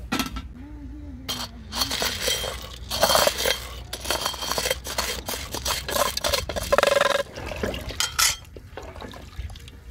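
Aluminium cooking pot and metal utensils clinking and scraping, with dry macaroni tipped from a plate into a pot of water and a ladle stirring the water. The clatter is irregular, with several sharp strikes.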